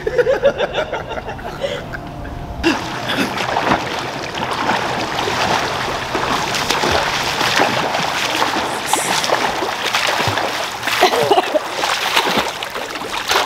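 Pool water splashing as a person swims, the splashing dense and continuous from about two and a half seconds in.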